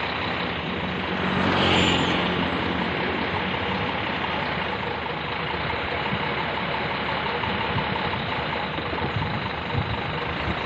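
Heavy truck's diesel engine running steadily, with a louder swell about a second and a half in.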